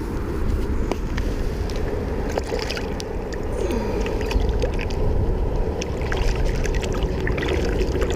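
Light splashing of water as a largemouth bass is lowered into the shallows by hand and released, over a steady low wind rumble on the microphone.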